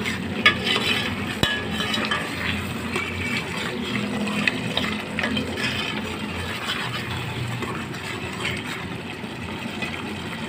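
Spoon stirring and scraping through spinach and minced meat frying in oil in a pot, with small clinks against the pot over a steady sizzle. The dish is at its final frying-down stage, its water nearly cooked off and the oil starting to separate.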